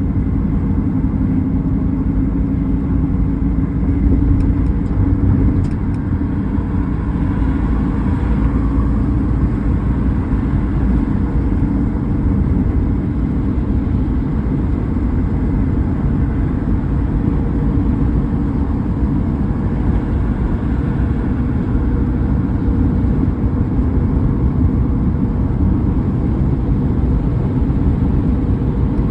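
A car driving, its engine and tyres giving a steady low rumble, with small swells in level as it accelerates.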